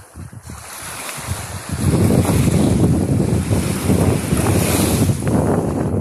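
Wind buffeting the microphone, turning to a loud low rumble about two seconds in, over the wash of small waves on a sandy shore.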